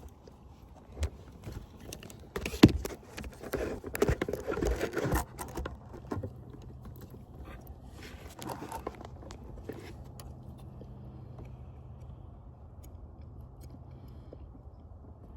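Handling noises from work on a van's interior panel: a sharp knock about two and a half seconds in, a few seconds of scraping and rattling, then another brief scrape; a faint low hum under it.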